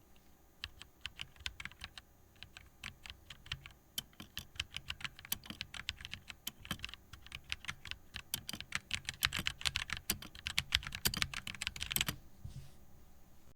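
Typing on an RK61 60% mechanical keyboard with linear red switches and HyperX double-shot keycaps: a run of key clacks that starts sparse and grows faster and louder, stopping about a second before the end.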